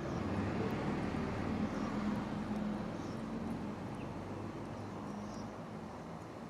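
A low, steady drone like a distant engine, swelling slightly and then easing off, with a few faint high chirps now and then.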